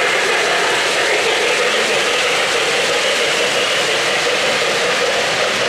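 O-gauge three-rail model trains running on the layout: a steady rolling noise of wheels and motors on the track as a model steam locomotive and its freight cars pass.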